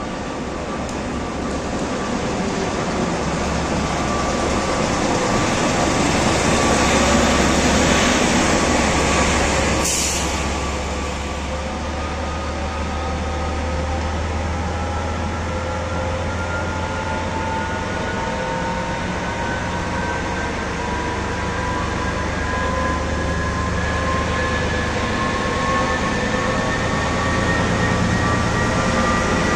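HŽ series 2132 diesel shunting locomotive moving slowly with passenger coaches. Its engine gives a steady low drone, with a whine that climbs slowly in pitch through the second half. There is a single sharp click about ten seconds in.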